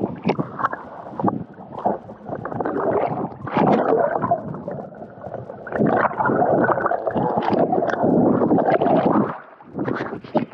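Seawater sloshing and gurgling around a camera microphone dipped in and out of the sea surface, with splashes. The noise is dense and muffled in long stretches while the camera is under water, and drops away briefly near the end.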